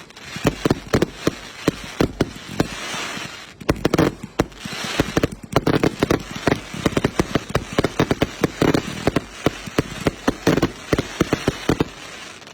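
Firecrackers going off in rapid, irregular bangs, several a second, with short stretches of hissing crackle in between.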